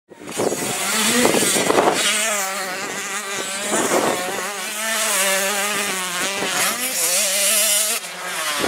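Small 85cc two-stroke motocross bike engines revving hard, their pitch climbing and dropping as the riders work the throttle and shift, with more than one engine heard at once.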